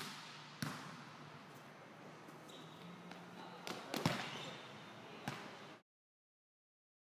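Volleyball smacks in an echoing gym: about five sharp hits spaced irregularly, the loudest about four seconds in. The sound then cuts off to silence near the end.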